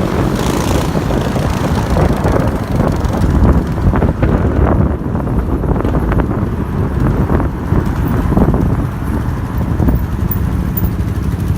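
Sport quad bike engines running under way, mixed with heavy wind rumble on the microphone.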